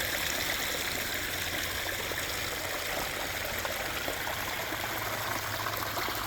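Water from a pump-fed waterfall spillway spilling over short rock drops in a backyard stream, a steady splashing and trickling with no change.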